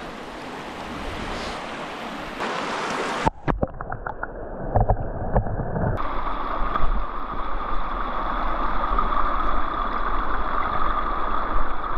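Steady rushing outdoor noise of wind and running water on an action-camera microphone. A little over three seconds in it is broken by a few clicks and knocks, and then a lower, gusting rumble takes over.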